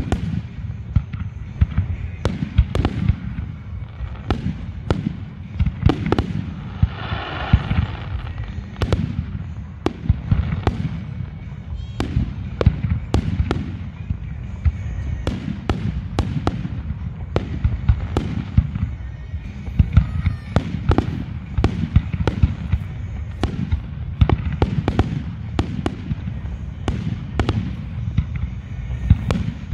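Fireworks display: aerial shells bursting in rapid, continuous succession, dozens of sharp booms over a constant low rumble.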